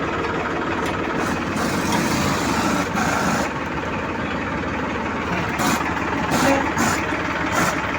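Engine idling steadily, with a few faint high clicks or clanks in the second half.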